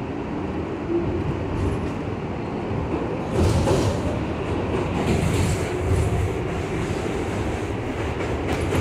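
NYC subway R62A car running on the rails, heard from inside the car: a steady rumble of wheels and running gear. It grows louder and rougher about a third of the way in and again past the middle.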